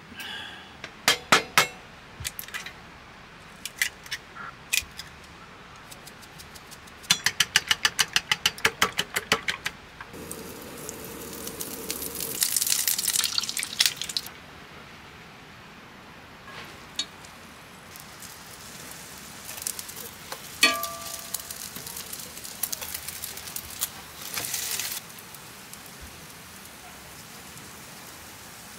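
Camp cooking handling sounds: scattered clicks and knocks of utensils and cookware, a quick run of rapid ticking, and a few seconds of hissing in the middle.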